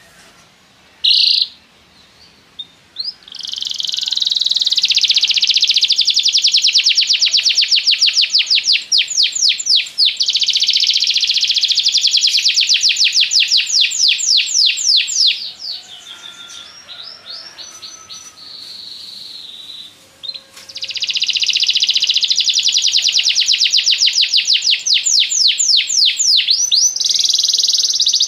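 Domestic canary singing long, loud phrases of rapid trilled notes. The song breaks off for a few seconds past the middle into softer scattered notes, then resumes.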